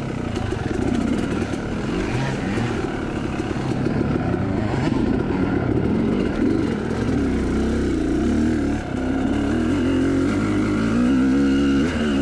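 Yamaha YZ two-stroke dirt bike engine running under load on a wooded trail, its revs rising and falling constantly as the rider works the throttle.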